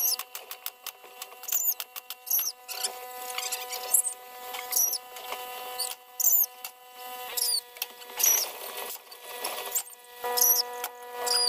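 Pneumatic staple gun driving staples through wire mesh into a wooden frame: a run of sharp clicks and snaps. Short high chirps repeat about once a second over a steady hum.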